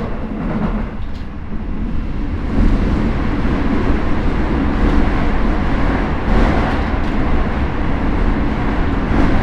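Keio 9000 series electric commuter train running between stations, heard inside the passenger car: a steady rumble of wheels on rail with a few brief louder swells.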